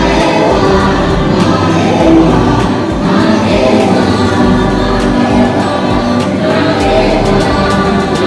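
Attraction soundtrack music with a choir singing over held chords.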